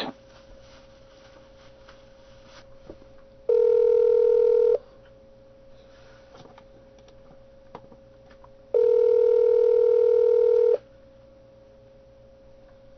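Telephone ringback tone on a line while a call rings out: a steady tone sounds twice, briefly about three and a half seconds in and then for two seconds near the nine-second mark. A faint hum sits on the line between the rings.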